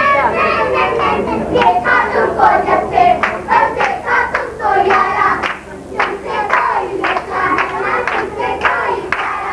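Voices singing, with frequent hand claps.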